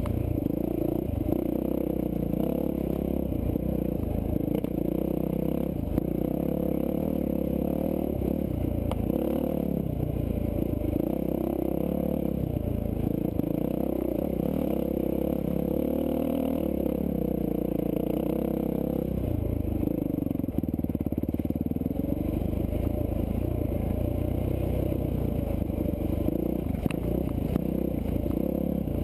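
Dirt bike engine running under a rider's throttle on a rocky trail, its pitch rising and falling again and again as it is revved and eased off.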